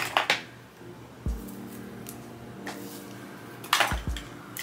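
Background hip-hop-style music: sustained low notes with a few deep bass kicks that drop in pitch and several sharp crash-like hits.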